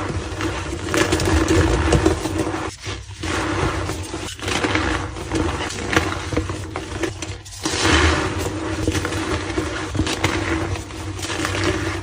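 Reformed white gym chalk being crushed: a dense, continuous run of crunching and crumbling with many small cracks, broken by a few brief gaps.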